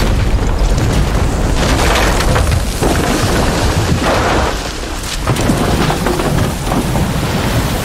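Film sound effect of a large tower collapsing: a continuous deep rumble with crashing, crackling debris that surges about two seconds and four seconds in.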